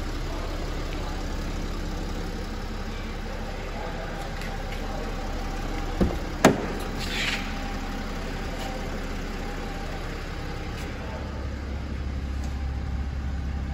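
BMW 335d's 3.0-litre twin-turbo straight-six diesel idling steadily, with two sharp clacks about six seconds in as the car door is opened. The low idle hum grows louder near the end.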